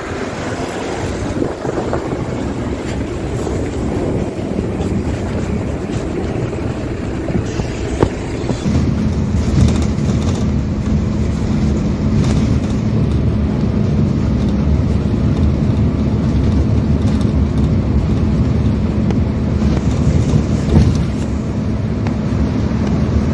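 Wind on the microphone and street noise, with a single knock about eight seconds in. After that comes the steady low drone of a MAZ 205 articulated city bus, heard from inside with its engine running.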